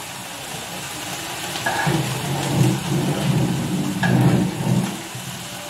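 Kofta sizzling on a griddle pan over a gas burner, with two short clinks of a fork against the pan about a second and a half and four seconds in as pieces are lifted off.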